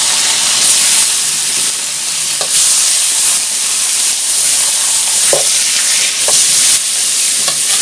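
Slices of Australian beef searing in a very hot wok, a loud steady sizzle, with a few light clinks of the metal ladle against the pan.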